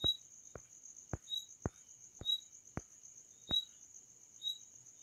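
Faint insect chirping: a steady high trill with shorter chirps repeating about once a second. Over it come sharp clicks about every half second, which stop about three and a half seconds in.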